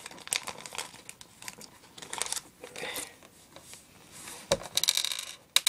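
Plastic packaging crinkling and rustling with small scattered clicks as a pack of fingerboard bearing wheels is handled and opened. Near the end a knock, then a quick burst of crinkling.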